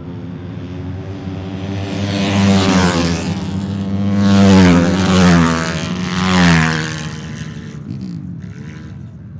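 Ice-racing motorcycle engines running hard as several bikes pass close one after another, each swelling and then dropping in pitch as it goes by, before the sound fades away near the end.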